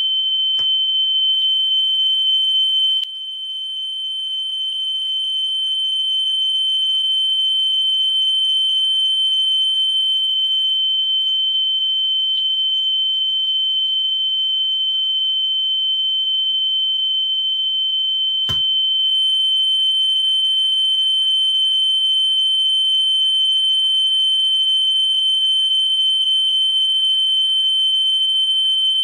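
A steady 3,000 Hz test tone from an alignment test tape playing on a Pioneer cassette deck, held while the head alignment screw is turned for maximum output. Its level drops sharply about three seconds in and climbs back over the next few seconds, and a single click comes about two-thirds of the way through.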